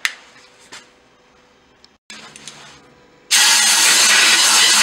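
Compressed-air blow gun blasting metal chips out of a freshly cut valve seat in a cylinder head: a loud, steady hiss lasting about a second and a half near the end, cut off sharply. A light click comes at the start.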